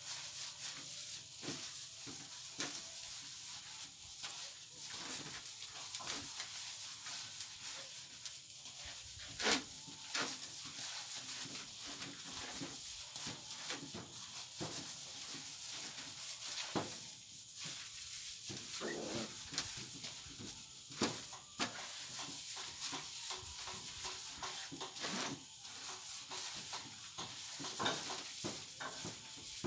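A hand in a plastic bag mixing and squeezing shredded food in an aluminium basin: a steady rustle of plastic and moist squishing, with many small clicks and a few sharper ones.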